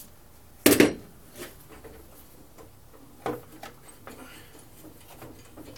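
Hand work on a push mower's engine while its starter pull cord is being freed: a loud sharp knock a little under a second in, a smaller knock a little after three seconds, and scattered light clicks and taps.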